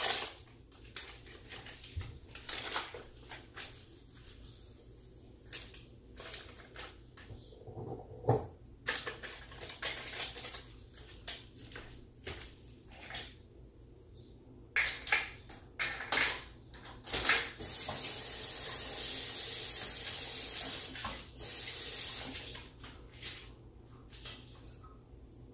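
Light clicks and knocks of kitchen handling, then water running steadily for about three seconds, starting and stopping abruptly, with a shorter run just after.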